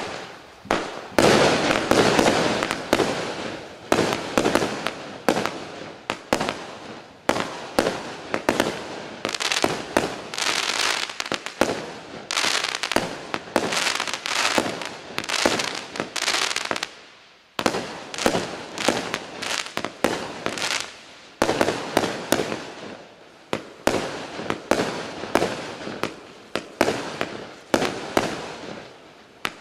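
Klasek Fireworks Show 192 consumer firework cake firing: a rapid, continuous series of shots and bursts, with a short pause a little past halfway before the firing picks up again.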